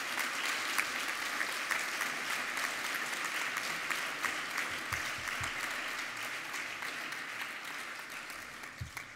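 Audience applause: many people clapping steadily, tapering off near the end.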